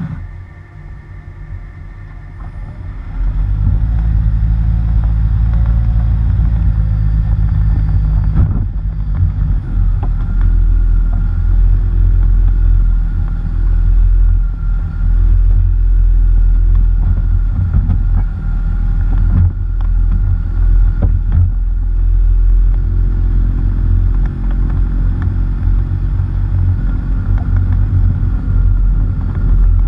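Heavy rumble and jolting from a vehicle driving over a rough stony dirt road, picked up by a camera mounted on the front bumper, with scattered knocks from stones and bumps. The rumble rises sharply about three seconds in.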